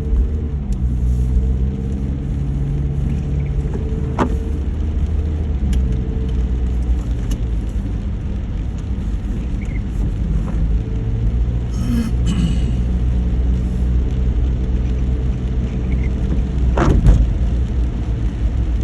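A car driving, with a steady low rumble of engine and road noise and a few sharp knocks, about 4 seconds in and again near the end.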